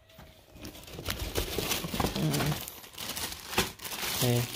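Packaging being crinkled and torn open by hand, a continuous rustling crackle of many small rips and crinkles, as newly delivered BMX parts are unboxed.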